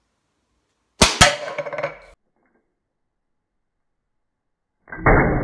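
Dan Wesson .177 CO2 pellet revolver firing once: a sharp crack, a second sharp metallic hit about a fifth of a second later, and a short rattle. Near the end a slowed-down, deeper replay of the shot begins.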